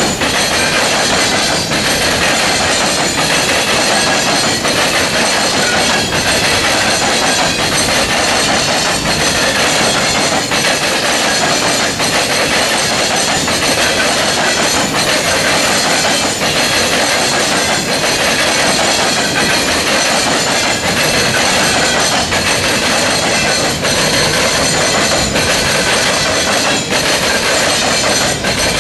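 Steel coal gondola cars of a freight train rolling over a railroad diamond crossing, their wheels pounding across the crossing in a loud, continuous clatter with scattered sharper knocks.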